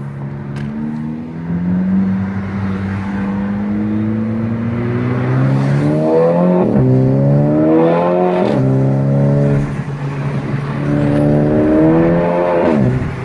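Turbocharged Mk5 VW GTI four-cylinder heard from inside the cabin, pulling hard under acceleration. It revs up through the gears with three quick upshifts, the engine note dropping at each one. It runs smoothly with no misfire on its new Audi R8 coil packs and NGK spark plugs.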